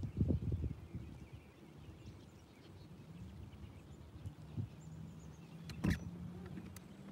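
Outdoor sound on a bass boat's front deck. A low rumble of wind or handling fills the first second, then a steady low hum sets in. A single sharp click comes about six seconds in.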